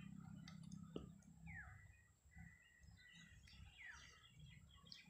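Near silence, with faint bird chirps in the background: two short downward-sweeping calls about a second and a half and four seconds in. A soft click comes about a second in.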